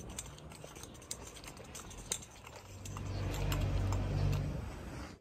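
Outdoor street sound while walking: scattered sharp clicks and taps over a steady background noise, with a vehicle engine running close by that grows louder past the middle and is loudest near the end.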